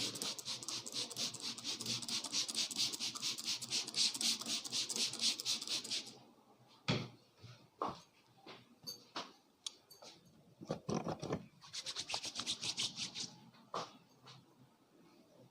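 Hands rubbing briskly over scalp and hair in a head massage: a fast, rhythmic rasping rub for about six seconds. Scattered ticks and taps follow, then another short run of quick rubbing.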